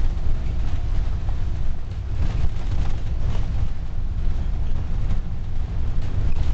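Volvo Gemini double-decker bus under way, heard from inside the passenger cabin: a steady low engine drone and road rumble with a haze of tyre and wind noise over it.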